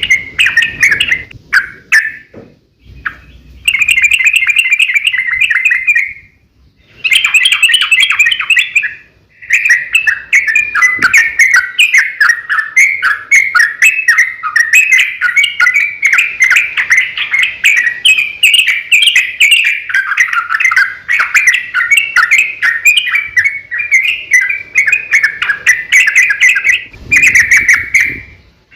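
Yellow-vented bulbul (trucukan) singing a loud, fast chattering song of rapid notes. It comes in three short phrases with brief pauses, then runs on without a break for most of the rest.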